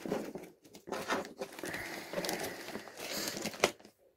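Plastic mailing bag crinkling and rustling as it is cut open with scissors and pulled apart by hand, with several sharp clicks among the rustle.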